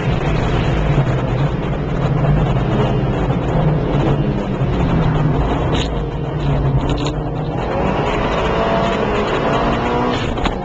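A car engine heard from inside the car on a track lap. It is held at high revs, eases off around six seconds in as the car slows for a tight corner, then revs up again with its pitch rising steadily as it accelerates out. A short click comes near the end.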